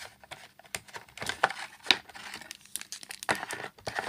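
Clear plastic packaging bag crinkling as a coiled power cord and car adapter are handled and unwrapped, in irregular rustles with a sharp click about two seconds in.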